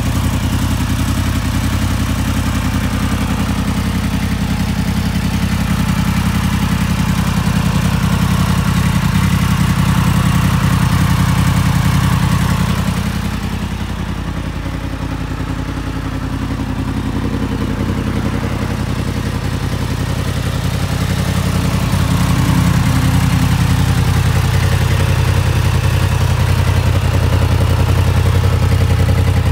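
Yamaha MT-10 SP's crossplane inline-four, breathing through a Yoshimura Alpha exhaust, idling steadily. It dips a little in level for several seconds midway.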